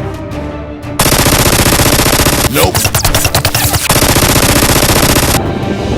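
Machine-gun fire sound effect: loud, dense rapid fire that starts suddenly about a second in and cuts off near the end, with a short break in the middle, over background music.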